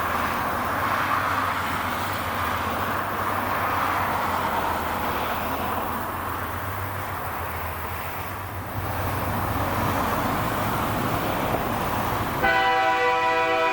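Diesel freight train running by with a steady low engine drone and rolling noise. Near the end a locomotive air horn sounds, a steady chord of several notes that goes on past the end.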